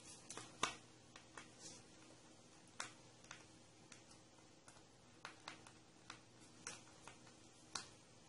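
Faint, irregular clicks and taps of small electronic parts and wire leads being handled: a speaker's leads being connected to a small receiver circuit board. The sharpest click comes about half a second in.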